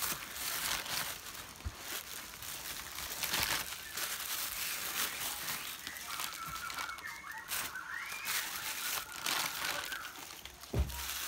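Plastic bag crinkling and rustling in irregular bursts as it is rubbed over the cut face of a jackfruit to wipe off its sticky sap.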